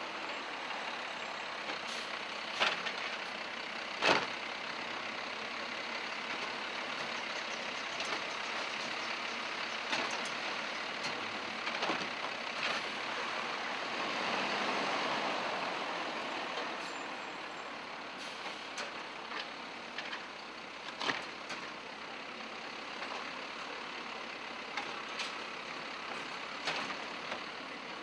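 DaDee Scorpion automated side-loader garbage truck running while its hydraulic arm grips, lifts and sets down a wheeled trash cart, with several sharp clunks of the arm and cart, the loudest two in the first few seconds. The running sound swells for a couple of seconds about halfway through.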